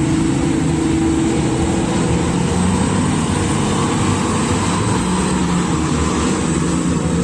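Komatsu HD785 mining haul truck driving past close, its diesel engine running steadily.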